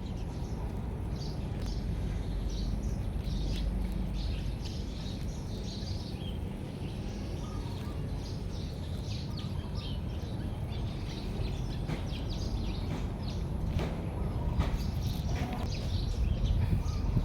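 Many short, high bird chirps over a constant low rumble.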